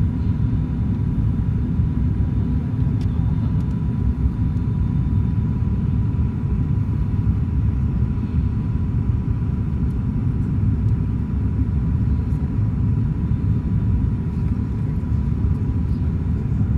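ATR turboprop airliner's engines and propellers heard inside the passenger cabin during the approach to land: a steady, even low rumble with a thin steady high tone running through it.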